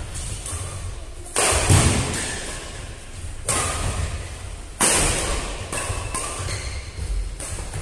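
Badminton rackets striking a plastic shuttlecock four times during a doubles rally, each hit sharp and echoing, with players' footsteps thudding on the court.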